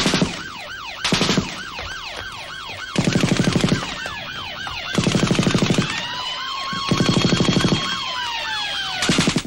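Police siren wailing rapidly up and down, about four times a second, with six short bursts of machine-gun fire in between. A second, slower siren tone joins about halfway and slowly falls. It all cuts off suddenly at the end, as from sound effects staged to fake a police raid.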